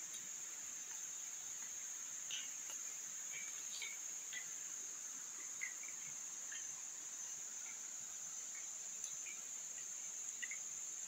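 Steady high-pitched drone of rainforest insects, with a few faint short chirps now and then.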